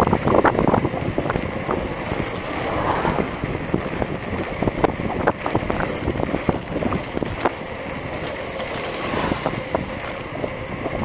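Wind buffeting the microphone of a handlebar camera on a bicycle riding along asphalt, with frequent short clicks and rattles from the bike over the rough road surface.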